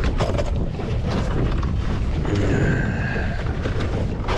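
Wind buffeting the microphone on an open boat, a steady rumbling noise, with a few faint clicks and knocks.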